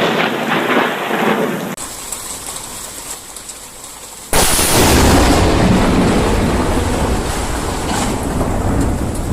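Rainstorm noise, then about four seconds in a sudden, loud clap of thunder that keeps rumbling.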